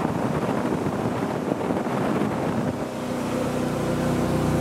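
Motorboat underway: the engine runs steadily under a loud rush of wind and water noise on the microphone. The engine's steady hum becomes clearer about halfway through.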